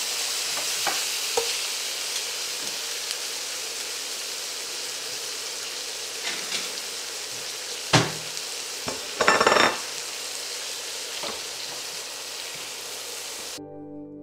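Sausages, onions and red peppers sizzling steadily in a stainless steel skillet, with metal tongs clinking against the pan: one sharp clank about eight seconds in and a longer clatter a second later. Acoustic guitar music comes in just before the end.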